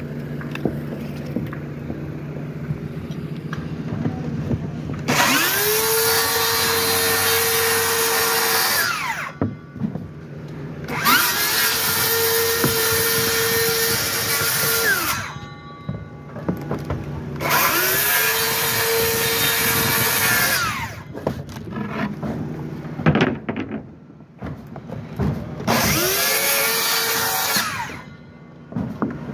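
Cordless circular saw cutting OSB sheathing in four separate cuts. Each time, the motor whines up to speed, runs steady through the board, and winds down when the trigger is released.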